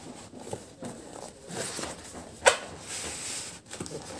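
Cardboard shipping box being handled and opened: rubbing and scraping of cardboard with light knocks, and one sharp, loud knock about two and a half seconds in.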